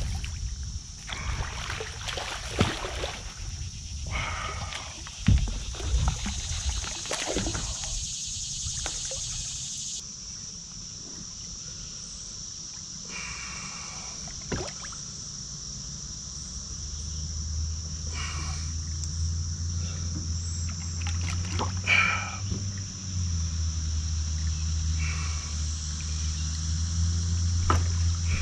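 Knocks and water sloshing around a fishing kayak. From about halfway a steady low motor hum comes in and grows louder toward the end.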